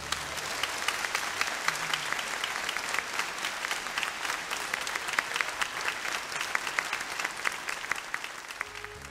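Church congregation applauding, many hands clapping at once, dying down a little near the end.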